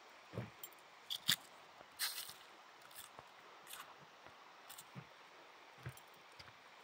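Footsteps on the wooden planks of a cable suspension footbridge: soft low thuds about once a second, mixed with sharp clicks from the boards and fittings as the bridge takes each step.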